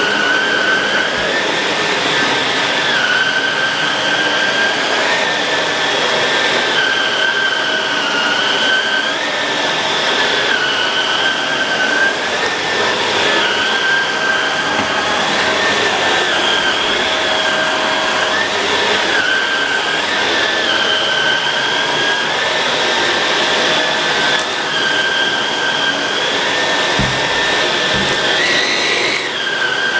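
Shark Rotator Pro Lift-Away NV500 vacuum cleaner running continuously, its high motor whine dipping slightly and recovering every two to three seconds.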